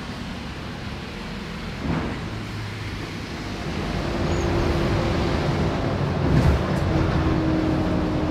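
Bus engine and road rumble heard from inside the passenger cabin, growing louder about four seconds in as a steady whine joins it, with a couple of short knocks.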